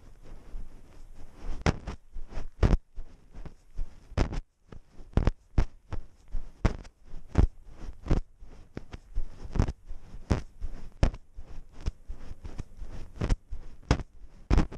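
Irregular knocks and rustles, about two or three a second, from a GoPro hanging on a walking cat's collar: the camera jostles against the cat with each step.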